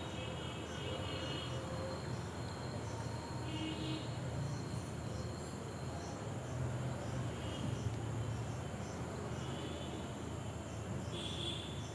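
Steady low background hum with faint, regular insect chirping; no distinct tool strikes stand out.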